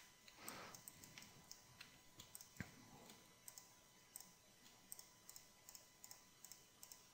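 Faint, irregular clicks of a computer mouse and keyboard being worked, a few every second, one a little louder about two and a half seconds in.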